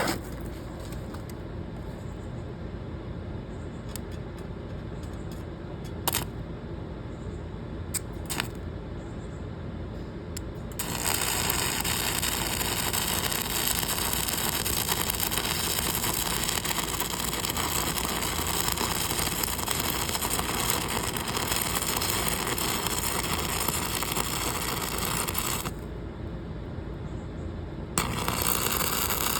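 Electric welding arc on the back side of a cracked door hinge: a steady hiss that starts about eleven seconds in, runs for about fifteen seconds, stops, and starts again near the end. Before the first bead there is only a low hum with a few sharp clicks.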